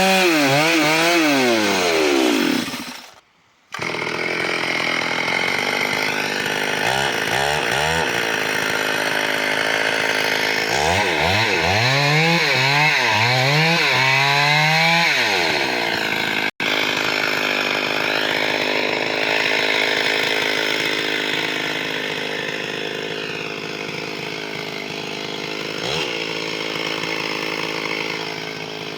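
Stihl chainsaw cutting through a large tree trunk, its engine revving up and down at times between long stretches of steady cutting under load. The sound drops out for under a second about three seconds in.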